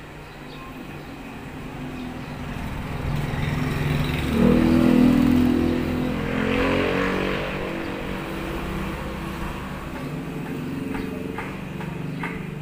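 A motor vehicle passing by: its engine grows louder, revs up about four and a half seconds in, then slowly fades away. A few sharp clicks come near the end.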